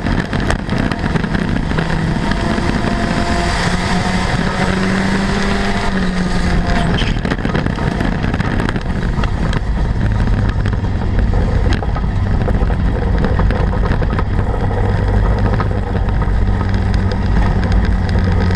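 Front-wheel-drive dirt-track race car's engine running hard, heard from inside the stripped cockpit, with rattles and knocks from the car over the dirt. The engine note drops about ten seconds in and holds steadier and lower after that.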